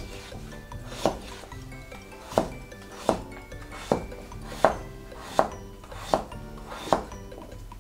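Kitchen knife chopping daikon radish into quarter-rounds on a plastic cutting board: eight sharp knocks of the blade through the radish onto the board, the first about a second in and then about every three-quarters of a second, over light background music.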